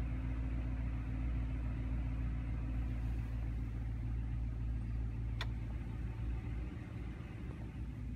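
GMC Sierra AT4 pickup's engine idling, heard from inside the cab as a steady low hum. A short click comes about halfway through.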